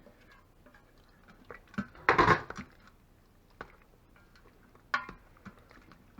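Kitchen clatter of a spoon and cookware: a few light clinks, then a loud clatter lasting about half a second around two seconds in, then single sharp clicks near the middle and about five seconds in.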